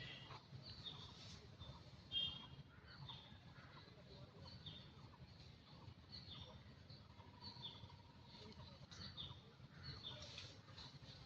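A bird calling faintly and steadily: short high notes that fall in pitch, repeated a little more than once a second. A brief sharp click sounds about two seconds in.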